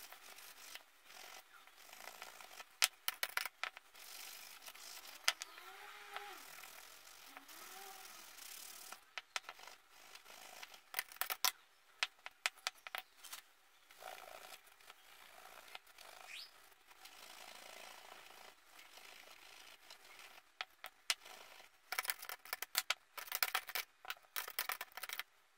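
Hand scrubbing of a copper jewelry box's ornate metal fittings: scratchy brushing and rubbing, broken by many sharp clicks and taps as the metal pieces are handled and set down. The clicks come thickest near the end.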